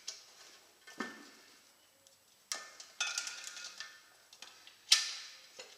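Steel tyre levers clinking against each other and the motorcycle wheel rim: five or six separate knocks, some ringing briefly, the loudest near the end.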